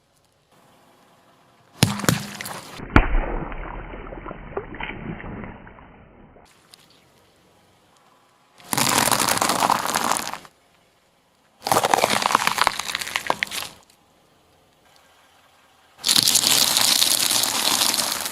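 Things crushed under a car tyre: a sharp crack about two seconds in that crackles away over a few seconds, then three separate bursts of dense crackling and crunching, each about two seconds long.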